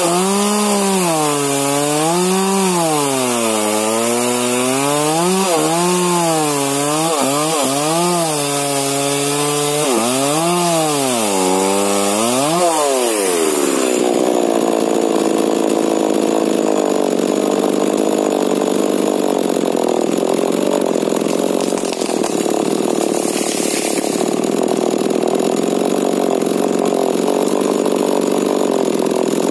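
Modified-exhaust 40 cc two-stroke Husqvarna 125 chainsaw with a Stihl bar cutting a young rubber tree, its engine pitch swinging up and down every couple of seconds as it loads and frees in the cut. About thirteen seconds in, the revs fall away and the saw settles to a steady idle.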